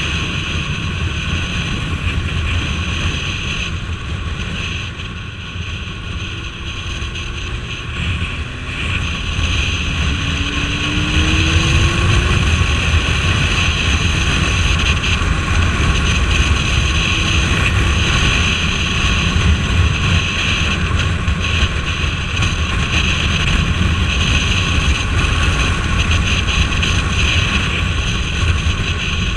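Suzuki Bandit 1250S inline-four motorcycle running at road speed, its low engine drone mixed with heavy wind noise on the microphone. It eases off a few seconds in, then gets louder again and holds steady from about a third of the way through.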